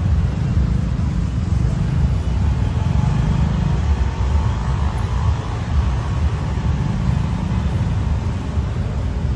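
Steady low rumble of busy city road traffic, with a slightly brighter hum swelling around the middle.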